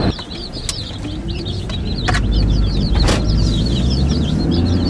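Baby chicks peeping nonstop, a dense run of short high peeps over the low hum of road noise inside a moving car. A few brief clicks sound early on and about midway.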